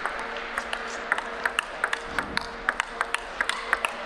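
Table tennis rally: the ball clicks sharply off the table and the paddles in quick alternation, several clicks a second, in a fast exchange of over-the-table backhands.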